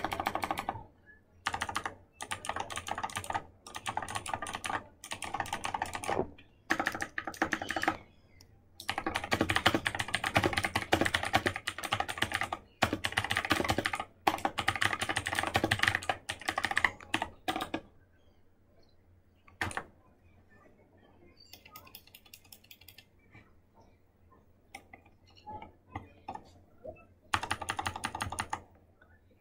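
Typing on a cheap mini mechanical keyboard with blue clicky switches: fast runs of sharp, crisp key clicks. They are broken by pauses, then thin out to sparse, quieter presses in the second half before a final quick burst.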